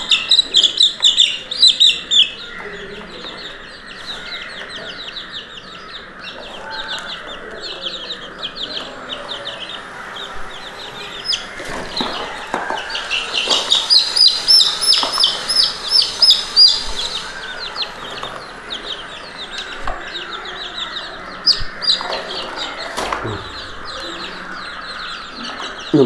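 A group of three-week-old chicks cheeping: a dense stream of rapid high-pitched peeps, busiest in the first two seconds and again about halfway through, with a few short knocks.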